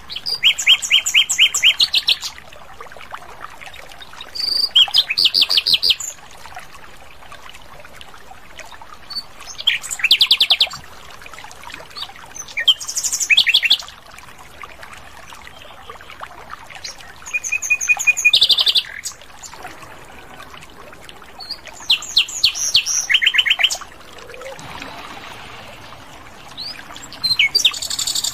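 Common nightingale singing: short, loud phrases of fast repeated notes and whistles, about seven phrases in all, each separated by a pause of a couple of seconds.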